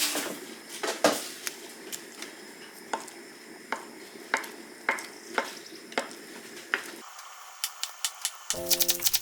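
A utensil stirring konjac noodles in a pot or pan, clicking against the metal about a dozen times over a steady hiss of cooking. The hiss stops about seven seconds in, and background music with a rattle comes in near the end.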